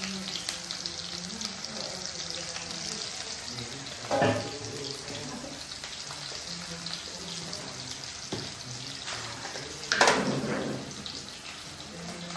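Oil sizzling in a wok on a gas burner, a steady hiss. Two louder bursts stand out, a short one about four seconds in and the loudest about ten seconds in, fading over a second.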